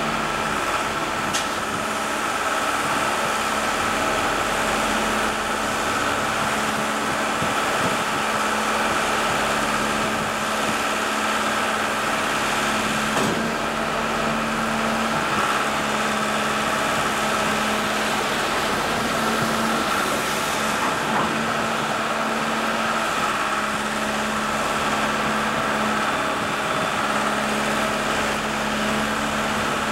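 Engine of a railcar-mounted tie-handling crane running steadily, with a steady high whine over it.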